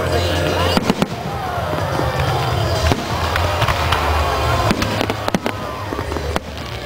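Aerial firework shells bursting in a string of sharp bangs, irregularly spaced, with music playing underneath.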